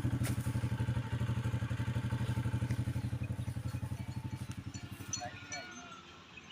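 Small engine running with an even, rapid putter of about ten beats a second, fading away and gone by about five seconds in.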